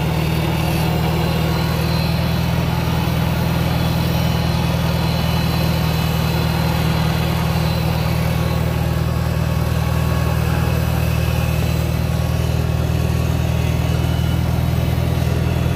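Farmall 140 tractor's four-cylinder engine running steadily while it pulls a belly-mounted cultivator through the soil.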